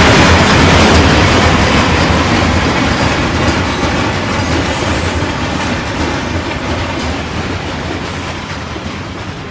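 Freight train cars rolling past on the rails, the noise fading steadily as the train draws away, with faint high wheel squeals.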